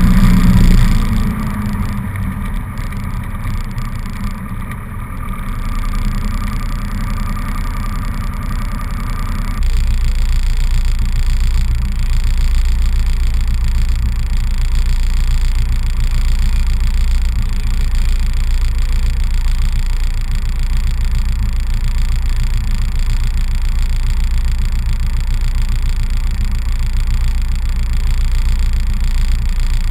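Cessna 150's Continental O-200 four-cylinder engine and propeller running, heard from inside the cockpit. Quieter for several seconds after the start, then a sudden step up about ten seconds in to a louder, deeper, steady run.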